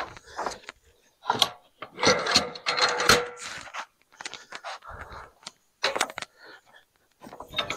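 Lumber being shifted by hand on a sawmill bed: irregular wooden knocks, scrapes and rustles with no saw or engine running.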